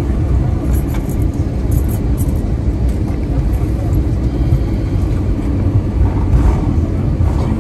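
Cabin noise of an Airbus A321 rolling off the runway just after landing: a steady low rumble from the engines and the wheels on the pavement, with a few faint clicks or rattles about a second or two in.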